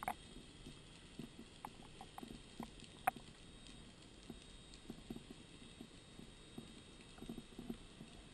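Faint underwater sound picked up by a diver's camera: a low hiss with scattered small clicks and knocks. A sharper click comes right at the start and another about three seconds in.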